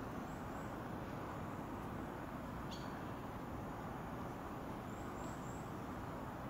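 Steady outdoor street ambience of distant traffic hum, with a few faint, high bird chirps just after the start and again about five seconds in, and one faint click about three seconds in.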